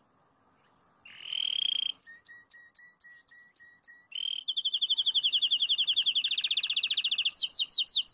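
Canary singing: a buzzy trill about a second in, then repeated notes at about four a second, then a long rapid rolling trill, and near the end quick slurred notes.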